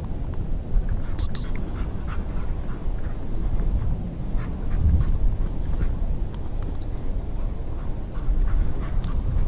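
Rustling and trampling through dry tussock grass, with low wind rumble on the microphone. About a second in come two short high-pitched pips.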